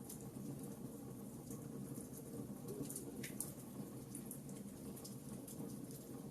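Wood fire crackling in a fireplace: irregular sharp pops and snaps over a steady low rumble of the flames, with a couple of louder snaps about three seconds in.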